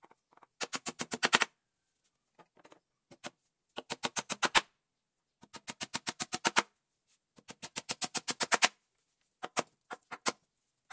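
Hammer driving nails into a teak wood frame: four quick runs of rapid blows, about ten a second and getting louder through each run, then a few single blows near the end.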